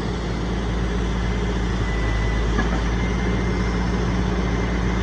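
Logging truck's diesel engine running steadily under load, driving the self-loader's hydraulic crane as it swings the grapple, with a faint thin steady whine over the drone.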